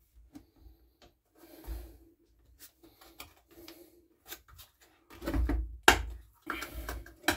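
Scattered knocks, clicks and rubbing from a petrol string trimmer being handled with its cover off. The handling gets louder and busier about five seconds in, with heavy thuds and one sharp click near six seconds.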